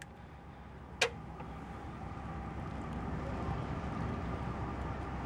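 A single sharp click about a second in as the aluminium beer can is handled, then a steady low rumble like a vehicle running nearby, slowly growing louder.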